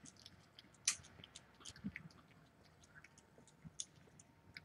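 A calico cat eating wet food from a stainless steel bowl: faint, irregular chewing and smacking clicks, the loudest about a second in.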